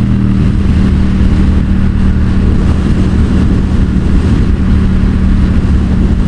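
Yamaha XSR700's 689 cc parallel-twin engine, breathing through a Yoshimura R77 exhaust, running at a steady high speed in one gear, its pitch held level. Heavy wind rush over the rider's microphone from the strong headwind.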